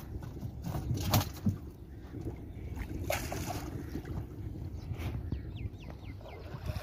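Fishing net clogged with wet lake weed being hauled over the side of a small wooden boat: water sloshing and dripping, with scattered knocks and splashes and a louder rustling splash about three seconds in.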